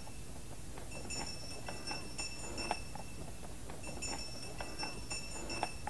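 Small harness bells jingling in irregular shakes, as on a horse-drawn sleigh, with scattered soft knocks.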